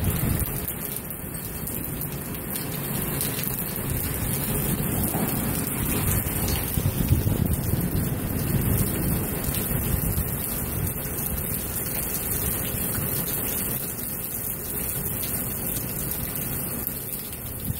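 Heavy rain pouring steadily in a rainstorm, with wind rumbling on the microphone.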